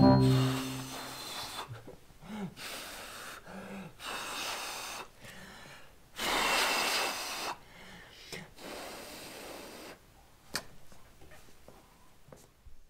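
A person blowing on a kitten's face: a series of airy breath puffs with short gaps between them, the longest and loudest about six seconds in. A brief low voiced sound opens it, and a sharp click falls near the end.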